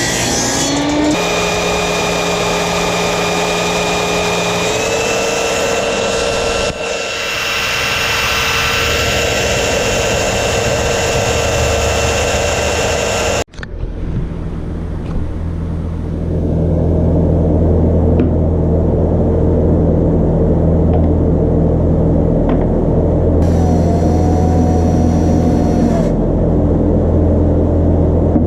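A machine running with a steady motor hum that rises in pitch as it spins up about a second in. It cuts off abruptly about halfway, and a deeper, steady running hum takes over.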